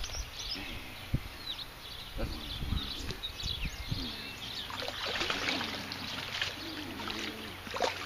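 Riverbank ambience: water sloshing and trickling at the bank, small birds chirping, and a few low thumps of handling in the first three seconds.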